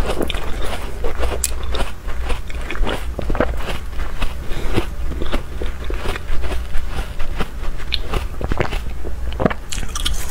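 Close-miked chewing of thin pieces of ice: irregular crunching and sharp cracking as the ice breaks between the teeth, with a fresh bite near the end.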